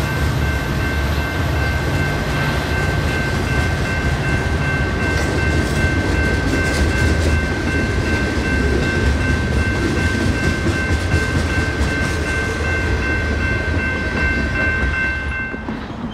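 Freight train's boxcars rolling past at close range: a steady low rumble of wheels on rail with some clatter, and a steady high ringing over it. Both stop about fifteen and a half seconds in.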